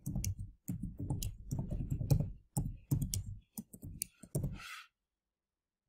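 Typing on a computer keyboard: a quick, uneven run of key clicks as a password is entered, stopping at about four and a half seconds.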